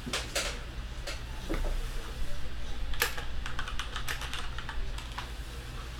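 Typing on a computer keyboard: scattered key clicks, with a quick run of keystrokes about three seconds in.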